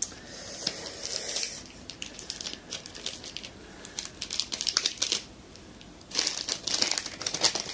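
Clear cellophane gift wrap crinkling and rustling as a wrapped package is pulled open by hand, in short scattered bursts that grow busier near the end.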